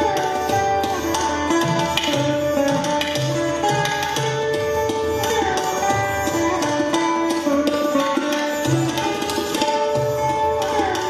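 Mohan veena, a lap-held slide guitar, playing a Hindustani classical melody with notes that glide between pitches, accompanied by tabla strokes.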